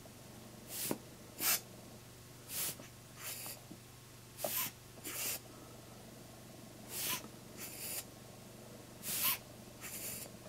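Hand-squeezed rubber air-blower bulb puffing air at the microphone: five squeezes about two seconds apart, each a sharp puff followed about half a second later by a second, softer rush of air.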